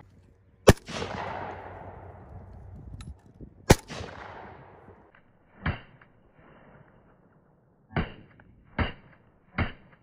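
AK rifle shots: two loud, sharp shots about three seconds apart, each trailing off in a long echo. These are followed by four quieter, duller shots in the second half, the last three less than a second apart.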